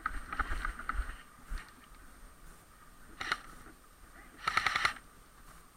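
Airsoft guns firing: a single shot a little after three seconds in, then a short rapid full-auto burst at about four and a half seconds. Knocks and thuds fill the first second.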